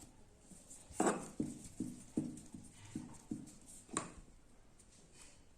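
Rolling pin knocking on a rolling board while dough rounds are rolled out: about eight quick wooden knocks between about one and four seconds in, the first the loudest.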